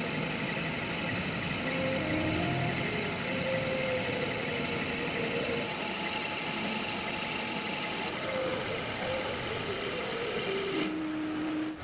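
Metal lathe running and cutting a small steel part, a steady machine hum with several steady tones and a faint wavering whine from the cut. The sound changes abruptly about a second before the end.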